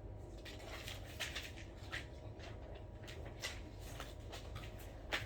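Quiet room tone: a low steady hum with faint scattered rustles and small taps.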